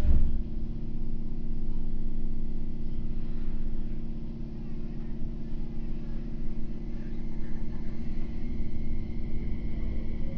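Tokyo Metro New 05 series subway car, its Hitachi IGBT VVVF drive, with a sudden thump at the start, then a steady low rumble while it stands. Near the end, rising inverter tones as the traction motors start to pull away.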